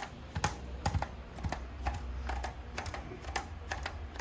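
A run of sharp, irregular clicks, about two or three a second, over a steady low hum.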